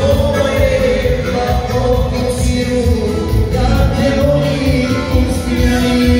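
Live amplified Bosnian kolo dance music: a man sings sustained, gliding notes into a microphone over the band's steady dance beat.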